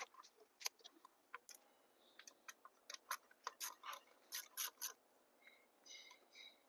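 Light, irregular clicks and taps of hands and tools on plastic and metal as an engine's ignition coil is unplugged and pulled out, with a few short squeaks near the end.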